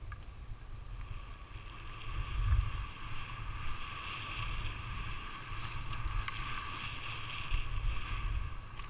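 Skis gliding over packed snow, a steady hiss that sets in about a second in, with wind buffeting the camera's microphone as an uneven low rumble.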